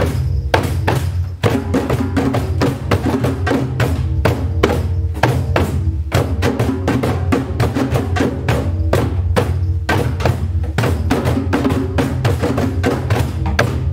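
Group hand drumming on djembes and cajóns, playing a steady, repeating clave-based rhythm of interlocking low bass and higher slap strokes, with many strikes a second and no break.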